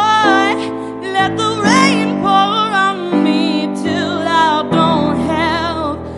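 A woman singing long held notes with vibrato, accompanied by sustained chords on a Yamaha digital keyboard that change every second or so.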